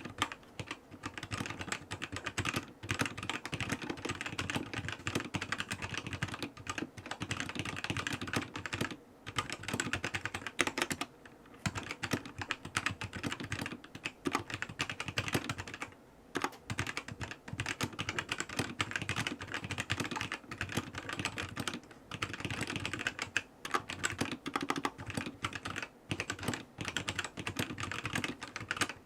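Fast, continuous typing on a ZI YOU LANG K68 mechanical keyboard with red linear switches and rubber O-rings fitted under the keycaps, with a few brief pauses.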